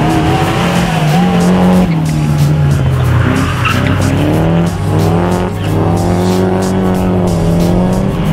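Nissan 240SX (S14) with an SR20DET engine drifting: the engine revs rise and fall several times while the tyres squeal and skid.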